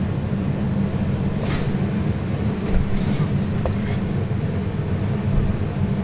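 Cold-room refrigeration unit running with a steady low drone, with a couple of brief rustles about one and a half and three seconds in.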